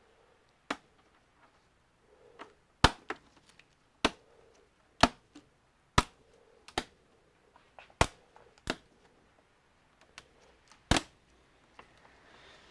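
Sharp plastic clicks and snaps, about ten of them a second or so apart, as a plastic cover on the back of an all-in-one computer is pried loose and its clips let go.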